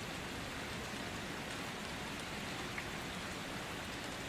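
Steady rain falling, an even, unbroken hiss of rain.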